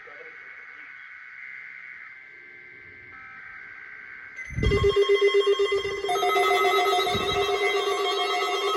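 Weather radio alert tone: faint steady tones at first, then about four and a half seconds in a loud, rapidly pulsing buzzy alarm starts suddenly. About a second and a half later a second, higher pulsing tone joins it.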